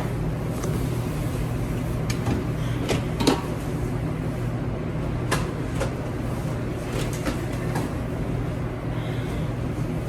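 Steady low mechanical hum, like ventilation or kitchen machinery, with a scattered handful of short knocks and clicks.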